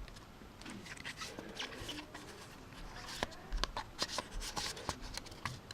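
Pokémon trading cards from a freshly opened booster pack being handled and slid apart, a run of soft clicks and paper rustles that gets busier in the second half.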